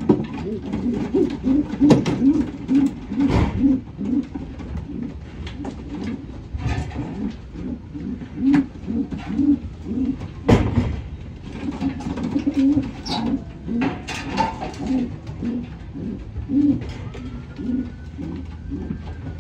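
Racing pigeons in a loft cooing over and over, the low coos overlapping, with a few sharp knocks among them.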